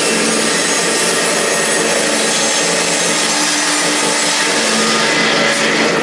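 Circular saw blade of a round-log sliding-table sawmill cutting lengthwise through a log as the carriage is pushed along: a loud, steady rasping hiss of blade in wood over the hum of the running saw. The hiss of the cut sets in sharply right at the start.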